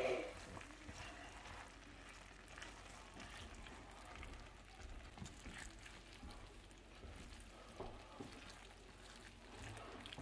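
Faint stirring: a nylon spatula pushing rice, sausage and diced tomatoes around a nonstick skillet, with soft, scattered scrapes and shifting of the food.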